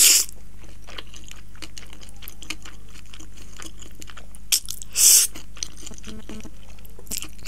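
A person slurping strands of cheesy spaghetti off a fork and chewing with wet mouth clicks. There are two loud slurps, one at the start and one about five seconds in.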